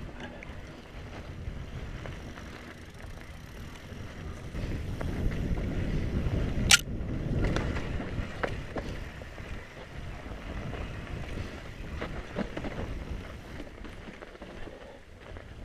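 Mountain bike rolling over a snow-covered trail: a continuous low rolling and rattling noise from the tyres and bike, louder in the middle, with one sharp clack about seven seconds in.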